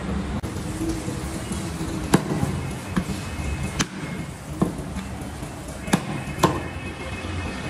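Meat cleaver chopping through goat rib bones onto a wooden chopping block: about six sharp chops at uneven intervals, starting about two seconds in.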